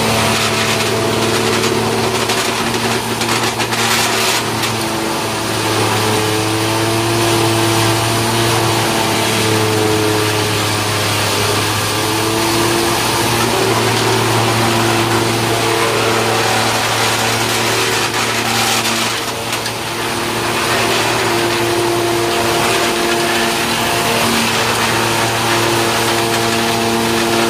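Wood sawdust machine running steadily: a motor hum under a broad rushing noise, its pitch wavering and dipping slightly a few times.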